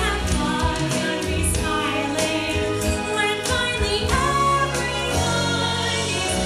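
Show music with singing over a sustained bass line.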